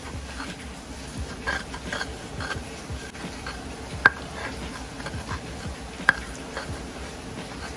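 Stone pestle grinding and stirring a wet, water-thinned sauce in a stone mortar: irregular gritty scrapes and wet squelches of stone on stone, with two sharp stone-on-stone knocks, about four and six seconds in.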